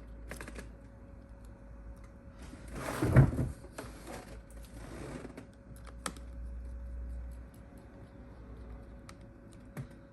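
Small clicks and taps of a precision screwdriver and tiny screws on a smartphone's internal frame during reassembly, with a louder rustle of handling noise about three seconds in.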